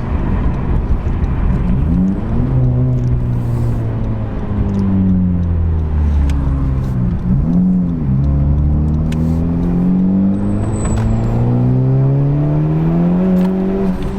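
Honda Civic Type R's turbocharged 2.0-litre four-cylinder, fitted with a PRL high-flow intake, accelerating on the road, heard from inside the car. The engine note climbs in pitch, breaks briefly about seven seconds in, climbs again slowly for several seconds and drops near the end.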